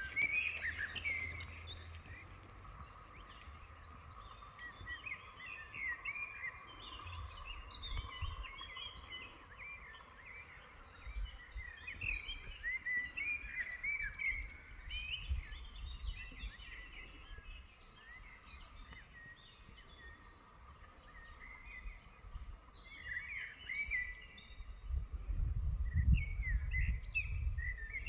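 Small birds chirping and singing in quick, overlapping calls, over a faint steady hum. A low rumble builds near the end.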